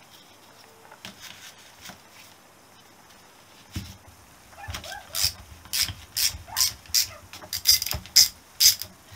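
A few light metal clicks, then from about halfway a run of sharp, irregular clicking from a socket ratchet, worked in short strokes on the nut of the rear brake hub's cam arm.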